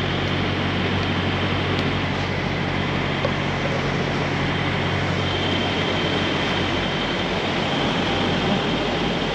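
Diesel engine idling steadily: an even low drone with a faint thin whine above it.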